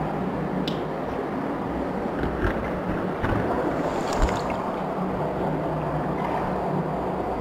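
Cold water sloshing and splashing around a caver as he crawls, lying down, through a tight flooded cave passage. It makes a steady rush of water with a few small knocks.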